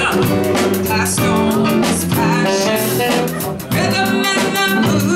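Blues band playing a song, with guitar prominent over a steady beat.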